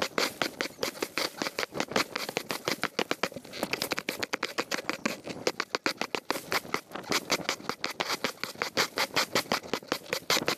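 Stiff-bristled push broom sweeping dry leaves across concrete paving, a rapid run of scraping strokes with the leaves rustling.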